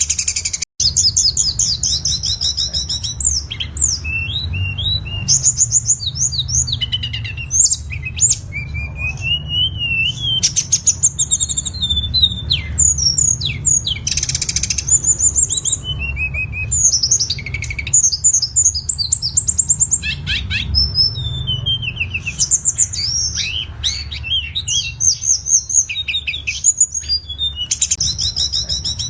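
Tledekan songbird singing continuously: a fast, varied stream of chirps, trills and whistled phrases, with a steady low hum underneath.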